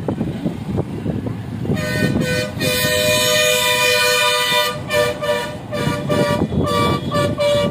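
A vehicle horn honking: one long blast starting about two seconds in, then a string of short toots, over a low rumble.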